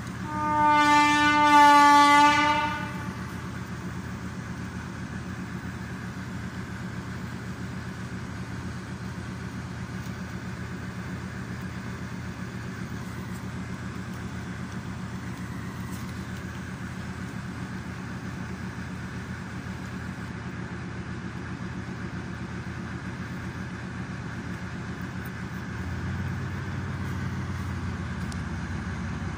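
Diesel shunting locomotive gives one long horn blast of about two and a half seconds, then its engine idles steadily; the engine note grows a little louder near the end.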